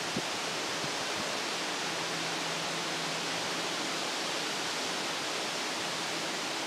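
Steady wind noise, an even hiss, made louder by the camera's telephoto zoom lens.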